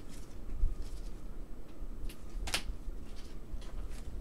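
Gloved hands handling trading cards on a tabletop: a few light clicks and taps, the sharpest about two and a half seconds in, over a low rumble of handling.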